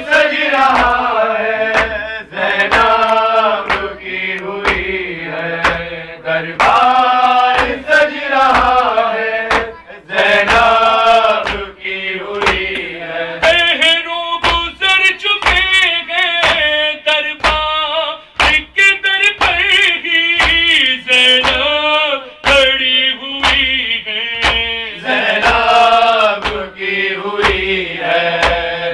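A man's voice singing a melodic devotional chant into a microphone, holding long bending notes, over a steady beat of sharp thumps.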